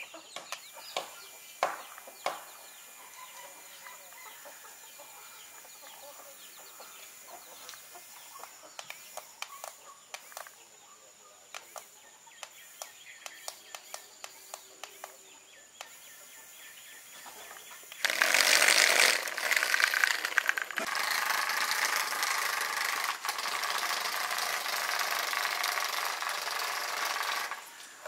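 Scattered faint clicks and distant calls. Then, about 18 s in, the homemade RC car's small geared DC motors start a loud, steady whirring that runs for about nine seconds and stops near the end.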